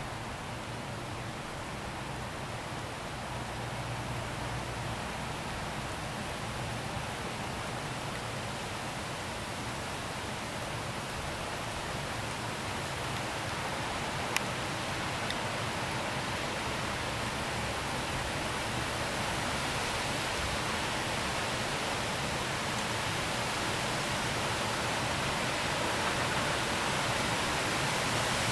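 Heavy storm rain falling steadily, slowly growing heavier. A single sharp click about halfway through.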